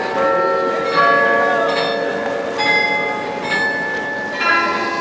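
The Rathaus-Glockenspiel, the carillon in Munich's New Town Hall tower, playing a slow melody on its bells. A new note is struck roughly every second, and each one rings on under the next.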